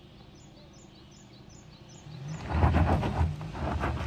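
A bird chirps a quick run of short, falling notes. Then, a little over two seconds in, a Lincoln Corsair SUV's engine comes in loud and working hard on a steep dirt slope, with a rough crackle of tyres on the loose surface.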